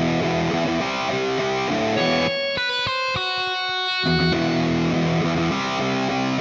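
Instrumental music: a dense, loud texture that thins about two seconds in to a few clear held notes, then comes back full about four seconds in.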